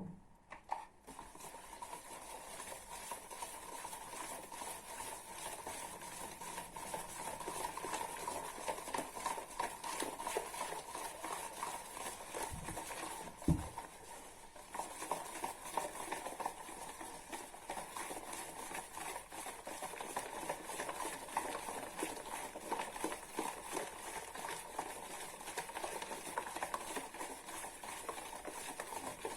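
Cake batter of eggs, sugar, oil and lemon yogurt being whisked in a bowl: a steady, rapid scraping and clicking of the whisk against the bowl, with one dull knock about halfway through.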